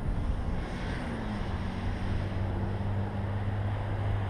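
Steady low hum of a vehicle engine running, dipping slightly in pitch about a second in, over a continuous background rush.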